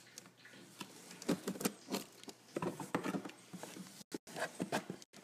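Cardboard box being opened and handled: irregular scrapes, rustles and small knocks of cardboard flaps rubbing and moving.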